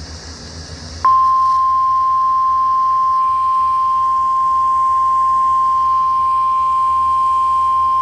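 NOAA Weather Radio's 1050 Hz warning alarm tone: one steady high-pitched tone that comes on sharply about a second in, after a moment of radio hiss. It signals an Emergency Alert System warning.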